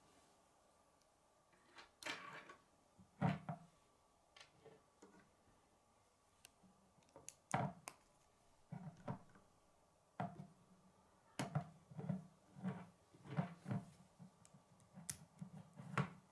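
Plastic K'nex rods and connectors clicking and snapping together as a model is assembled by hand, with pieces tapping and knocking on a wooden tabletop. Irregular short clicks and taps, coming more often in the second half.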